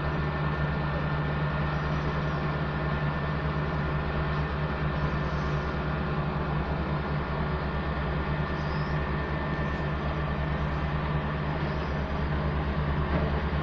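Diesel engine of heavy road-construction machinery running steadily with a constant low hum.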